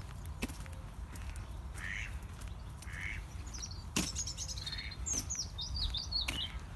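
Birds calling: a few short, soft calls, then about four seconds in a quick run of high chirping notes from a small songbird. A few sharp clicks and a low rumble of wind lie underneath.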